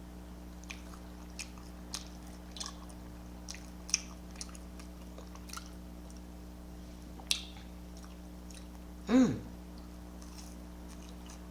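Close-miked mouth chewing an air-fried chicken meatball, with soft wet clicks and smacks about every half second. A short voiced "mm" sounds about nine seconds in, over a steady low electrical hum.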